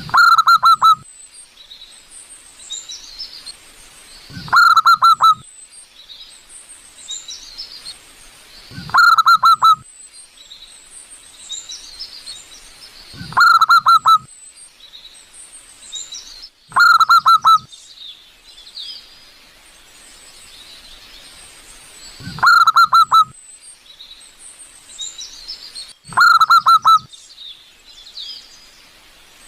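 Zebra dove (perkutut) cooing: seven loud calls, each a quick run of notes lasting about a second, repeated roughly every four seconds. Fainter high-pitched chirping fills the gaps between calls.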